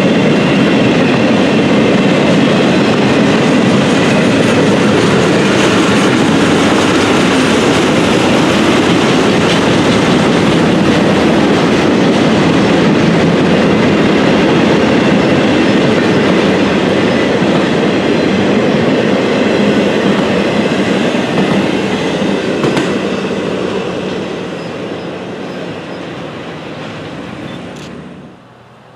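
A train's cars rolling past on the track, loud and steady, then dying away over the last several seconds as the train passes.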